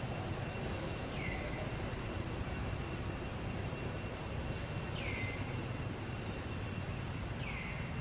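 Steady outdoor background noise with a low rumble and a faint, steady high hum. Three short, falling chirp-like animal calls come about a second in, about five seconds in and near the end.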